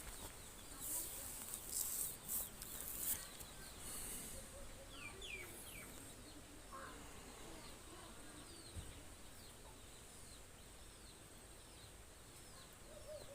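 Faint background: a few soft rustles and knocks in the first few seconds, then small birds chirping faintly, short falling calls repeated every second or so.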